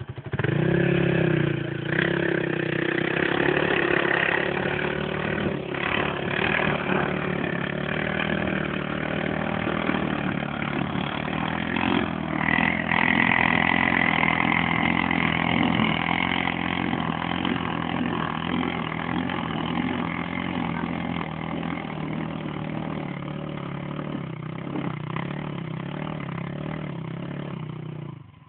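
Quad bike engine running and revving as it pushes through deep mud, its pitch rising and falling. It starts loudly about half a second in and stops abruptly near the end.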